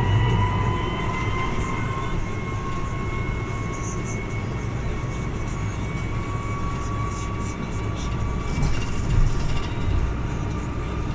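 Irisbus Cristalis ETB 18 articulated trolleybus in motion, heard from inside at the front: the electric traction motor's whine rises slowly in pitch over a steady low road rumble.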